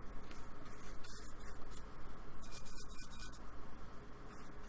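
Paintbrush bristles scrubbing acrylic paint onto a board in repeated short strokes, a dry scratchy rubbing sound.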